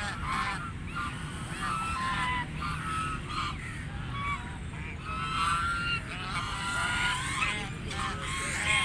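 Several geese honking: many short calls at a range of pitches, overlapping and coming one after another.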